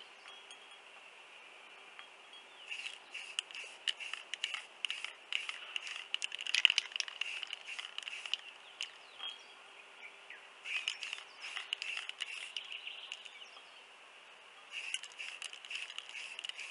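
Aerosol spray-paint can spraying a glass bottle in short repeated bursts, in three spells separated by brief pauses.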